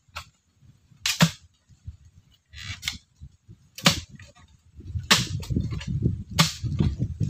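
Sharp single strikes of a tool in post-setting work, one every one to two seconds. Low scraping and rustling builds up in the last two seconds.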